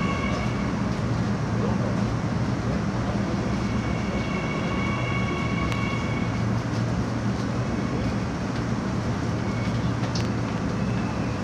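Seoul Metro Line 9 9000-series electric train running at speed through its underground line: a steady rumble of wheels on rail, with thin high-pitched tones that come and go, once lasting a couple of seconds midway.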